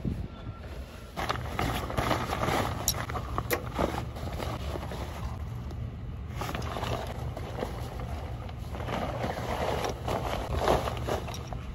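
Nylon chest waders rustling and crinkling in bursts as they are handled and pulled on, with a couple of sharp clicks about three seconds in, over a steady low rumble.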